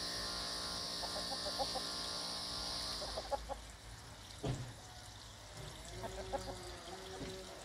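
Domestic hens clucking softly and making short calls while they peck at food, with low, repeated clucks in the last couple of seconds. A steady high hiss cuts off about three seconds in, and a single knock comes about a second later.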